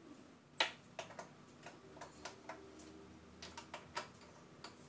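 Light clicks and taps, about a dozen at uneven spacing with the loudest about half a second in, from hands working the connectors and controls of a power amplifier.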